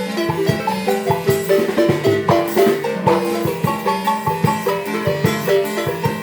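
A marimba playing a lively tune: rapid mallet-struck notes over a steady, rhythmic bass line.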